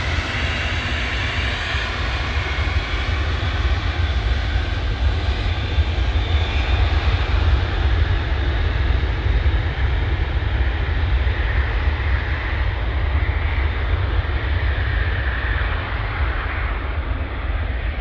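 Loud, steady jet engine noise from an Antonov heavy cargo jet taking off, with strong deep rumble. Toward the end the high hiss thins out.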